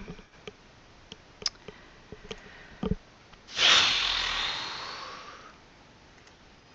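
A few light clicks and taps, then a long breathy exhale close to the microphone that starts sharply about three and a half seconds in and fades over about two seconds.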